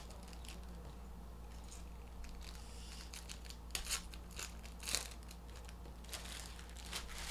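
Trading card pack wrappers crinkling and tearing as packs are opened and cards handled: a scatter of short, sharp rustles, the strongest about four and five seconds in.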